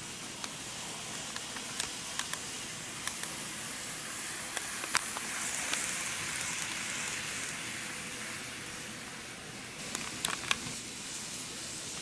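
N-gauge model diesel railcar running along the layout's track: a steady rushing hiss of wheels and motor, with scattered sharp clicks over rail joints and points, growing louder around the middle as the train passes and then easing.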